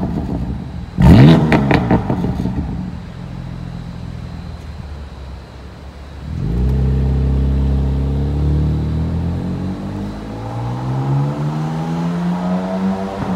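BMW F80 M3's twin-turbo inline-six blipped sharply once about a second in, with a few crackles as it falls back to idle. About six seconds in the car pulls away, its engine note climbing steadily, dropping once at an upshift around ten seconds, then climbing again.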